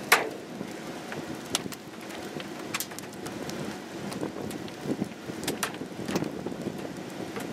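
Wind rushing on the microphone, with a handful of scattered sharp taps; the loudest tap comes right at the start.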